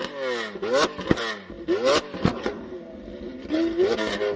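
Lamborghini Aventador LP700-4's V12 engine revved in repeated quick blips, the pitch rising sharply and falling back about once a second, with short sharp cracks in between.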